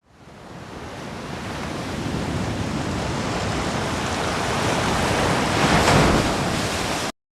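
A steady rushing noise, spread evenly from low to high with no distinct tones, swells up from silence, peaks about six seconds in, then cuts off abruptly.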